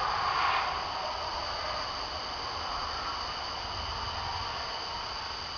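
Thunder rumbling low and slowly fading, over a steady high chirring of night insects.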